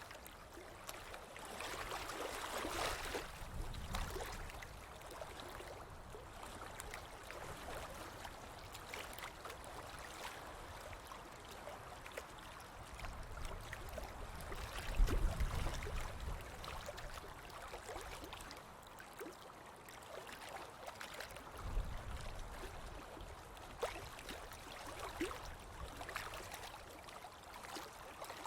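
Sea waves washing in, a continuous wash of surf that swells louder a few times, most strongly about halfway through.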